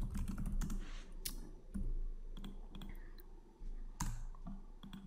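Typing on a computer keyboard: irregular key clicks, a quick run in the first second or so and scattered strokes after.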